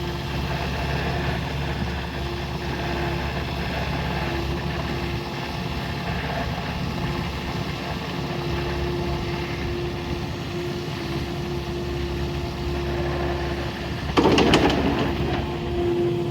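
Kubota KX080-4A2 excavator's diesel engine running steadily, with a thin, steady whine over it. About 14 s in comes a short, loud burst of noise lasting under a second.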